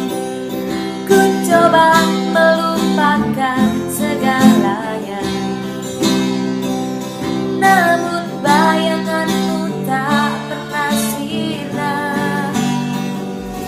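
Song intro played on strummed, plucked acoustic guitar over sustained low notes, with a wavering melody line above.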